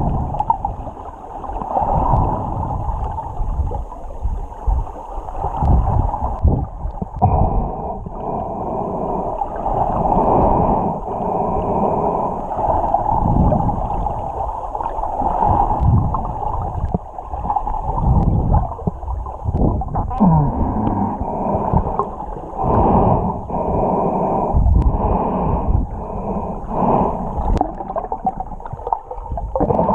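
Muffled underwater gurgling and sloshing of water around a submerged camera, with surges every two to three seconds from a snorkeler breathing through the snorkel.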